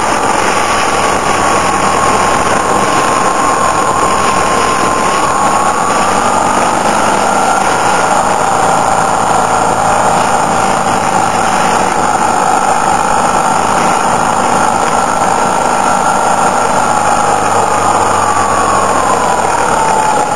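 Motorcycle engine running under way with heavy wind noise, heard from on board behind the windscreen. Its steady whine rises a little a few seconds in and drops near the end as the speed changes.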